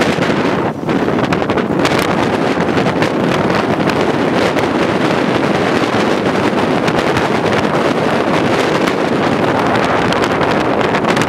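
Wind buffeting the microphone: a steady loud rush with crackly gusts, easing briefly about a second in.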